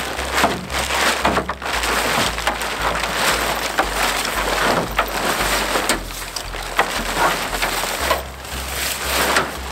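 Rustling and crinkling of a Hikpeed pop-up truck tent's fabric and its plastic wrapping as it is unrolled and spread out by hand, a dense run of crackling with many sharp crinkles.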